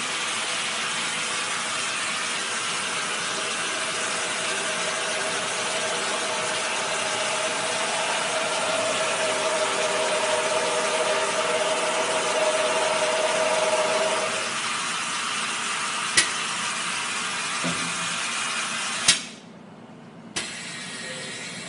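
Lens spin coater running during the coating step: a steady whirring hiss with a held hum, which fades about two-thirds through. Two sharp clicks follow, and the machine cuts off suddenly near the end.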